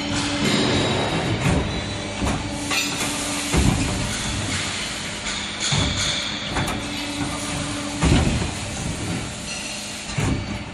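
CNC tube bending machine working through its cycle: a steady motor hum, with a higher tone that switches on and off, broken by repeated knocks and clunks every second or two.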